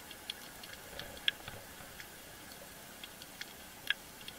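Underwater ambience: scattered, irregular sharp clicks and crackles over a steady hiss, picked up by the camera in the sea.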